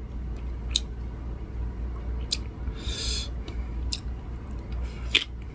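A person chewing a mouthful of salt-pressed cucumber pickle side dish, with a few sharp clicks and a short hissy burst about three seconds in, over a steady low hum.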